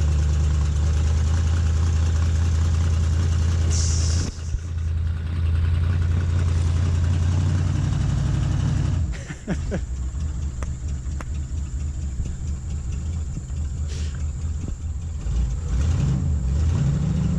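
1978 Ford F100 pickup's engine running as the truck is maneuvered, a heavy steady note. A short high hiss sounds about four seconds in, and from about halfway on the engine note drops lighter and more uneven, with a few brief rises in revs.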